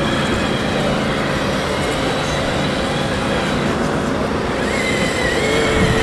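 Radio-controlled model crawler dozer running and pushing a pile of soil, a steady mechanical drone with a high whine that climbs a little about five seconds in.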